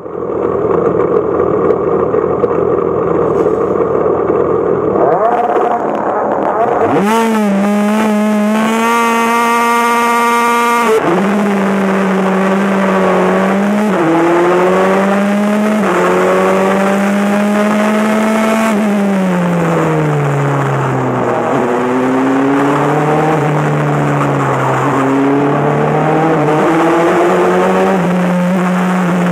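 A Formula 4 race car's engine heard from onboard. It runs at held revs for several seconds, then rises sharply about seven seconds in. It climbs through the gears with quick upshifts, then drops through several downshifts under braking a few seconds later. After that the revs rise and fall through the corners.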